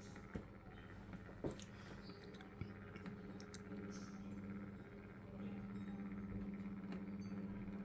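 Faint, steady hum of a small motorised rotating display turntable, a little louder from about five seconds in, with three faint ticks in the first three seconds.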